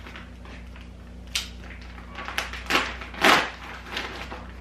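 Plastic bag of seed-starting potting mix rustling as it is handled: several short rustles, the loudest a little past three seconds in, over a steady low hum.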